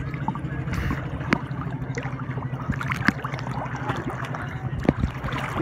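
A boat engine running steadily with a low, even pulsing hum, while water splashes and laps in short sharp bursts right at the microphone.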